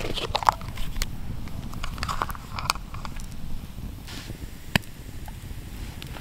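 Small plastic egg container being opened by hand: the snug lid squeaks and creaks as it is worked open, with scattered clicks and one sharp click near the end, over a steady low rumble.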